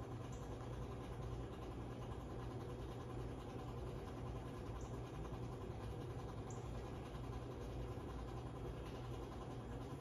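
Hunter Caicos 52-inch five-blade ceiling fan running steadily, a low even hum with the soft rush of the spinning blades.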